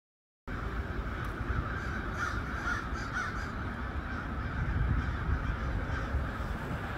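Crows cawing, with a run of calls about one and a half to three and a half seconds in, over a steady low rumble.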